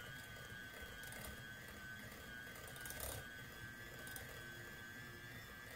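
Electric hand mixer on low speed, its beaters working softened cream cheese in a glass bowl: a faint, steady motor whine.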